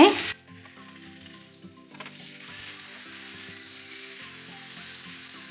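Raw chicken breast strips sizzling in hot oil in a frying pan, with browned garlic and onion, while a spatula stirs them; the sizzle grows louder about two seconds in.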